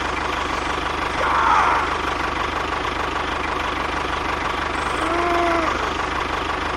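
Small engine of a homemade mini tractor idling steadily with a fast, even putter. About five seconds in, a short pitched tone rises and falls once.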